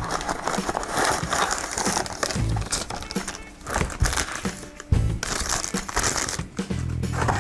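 A cardboard box and a clear plastic bag crinkling and rustling as they are opened and handled, over background music with a low bass line.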